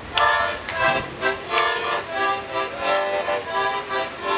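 Music: a melody of notes that change every few tenths of a second.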